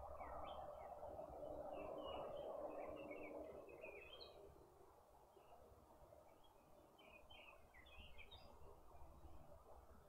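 Faint, quiet night ambience: scattered clusters of short, high chirps, with a soft hiss underneath that fades away about four seconds in.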